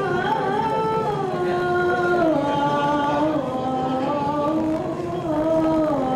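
Dance accompaniment music: one voice singing a slow melody of long held notes that slide from one pitch to the next, drifting downward overall, with no clear drum beat.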